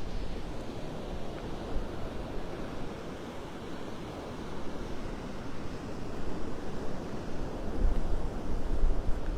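Gulf surf washing ashore, with wind buffeting the microphone; the wind rumble grows stronger near the end.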